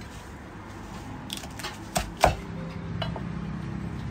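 Meat cleaver chopping cooked goose on a thick wooden chopping block: a few light taps, then two heavy chops a quarter second apart about two seconds in. A low steady hum follows.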